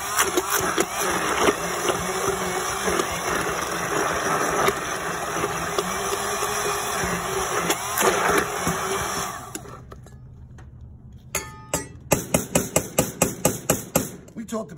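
Hand-held immersion blender (burr mixer) running in a narrow stainless-steel insert, pureeing a thick cranberry spread, then switched off about two-thirds of the way through. Near the end comes a quick run of metal knocks, about three a second, as the blender shaft is tapped against the insert's rim to knock the spread off.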